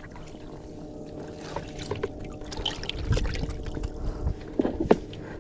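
Water sloshing and dripping in a landing net as a hand works among the cuttlefish held in it, with small scattered splashes and clicks and a short low rumble about three seconds in.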